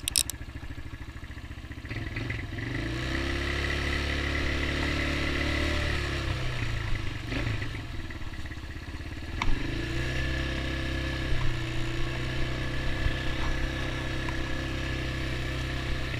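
Small ATV engine idling, then revving up about two seconds in and running steadily under way. The revs drop off around seven seconds in and pick up again about ten seconds in, with a sharp click in between.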